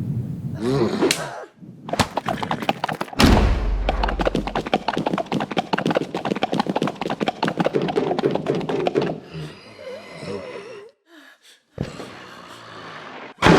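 Foley sound effects: a heavy thud about three seconds in, followed by about six seconds of dense, rapid clattering, then quieter scattered sounds.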